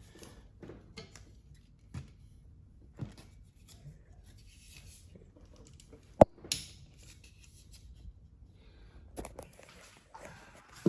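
Light clicks and rustling of a plastic windshield wiper blade and its packaging being handled, with one sharp click about six seconds in.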